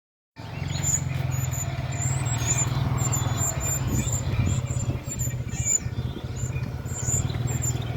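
Young prinias (prenjak) giving short, high chirps over and over, over a steady low hum.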